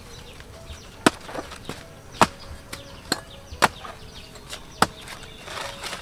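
Cleaver chopping into the base of a banana plant's stem: five sharp chops about a second apart, the first two the loudest.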